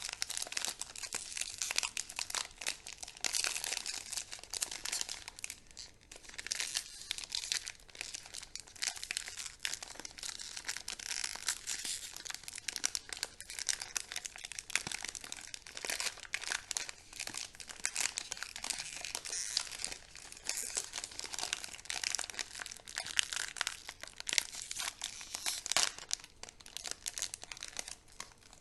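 Chocolate and candy wrappers being crinkled and torn open by hand: dense, continuous crackling of foil and plastic with brief lulls.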